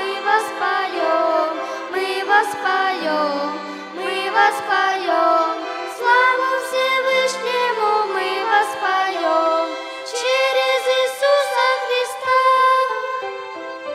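Violin ensemble playing a slow hymn melody in several parts, with vibrato on the sustained notes.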